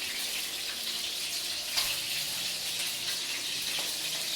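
Chicken wings frying in hot oil in a pan: a steady sizzle, with one short click a little under two seconds in.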